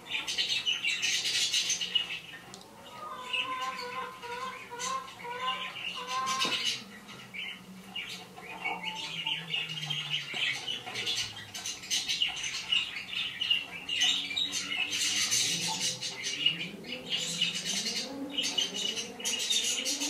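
Parrots screeching and squawking on and off, played back through a computer's speakers.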